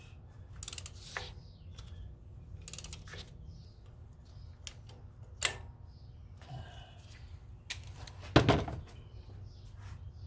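Ratchet wrench clicking in short runs and metal tools clinking as a spark plug is worked in the engine bay. A louder knock comes about eight seconds in.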